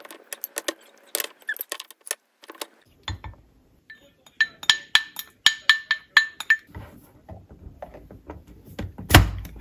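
A utensil clinking against a bowl while ingredients are stirred together. There is a flurry of light clicks, then a quick run of ringing clinks at about four a second, and a louder knock near the end.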